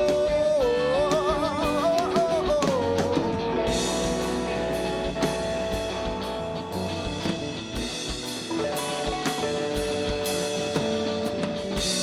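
Rock band playing live: a held note with vibrato trails off in the first three seconds, then the band carries on instrumentally with drum kit, crashing cymbals and sustained guitar chords.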